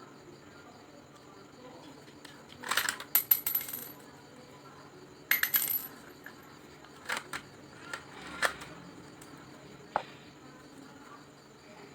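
Lego plastic parts clicking and rattling in two short bursts about two and a half seconds apart, followed by a few separate single clicks.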